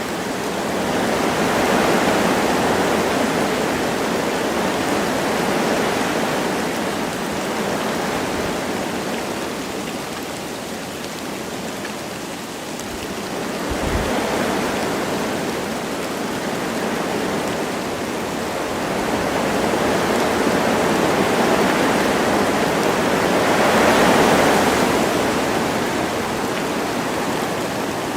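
Wind blowing through forest trees in gusts, swelling and easing every several seconds, with light rain falling.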